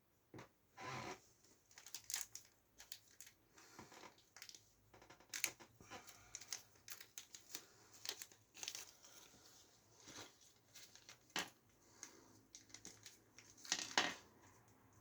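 Irregular crinkling and rustling with scattered small clicks and taps, the sound of hands handling packaging and small computer parts.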